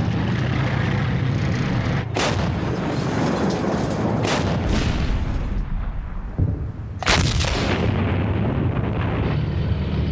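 Artillery shell blasts: sharp booms about two seconds in, twice around four and a half seconds, and a loudest one about seven seconds in, each trailing off. Under them runs a steady low rumble of military vehicles.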